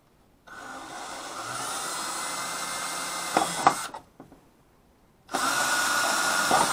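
Cordless drill boring a small hole, running in two spells: about three and a half seconds, then about a second and a half. A few sharp clicks come near the end of the first run.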